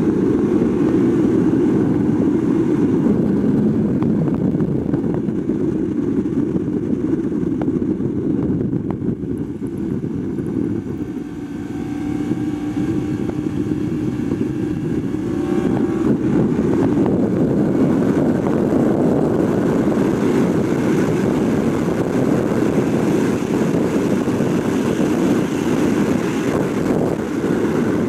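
Yamaha R1's crossplane inline-four engine running hard at racing speed, with wind rush on the microphone. The sound eases about ten seconds in through a corner, then the engine pulls hard again as speed builds down the straight.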